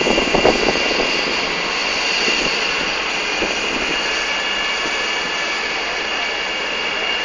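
Helicopter running on the ground: a steady high turbine whine over an even rush of engine and rotor noise.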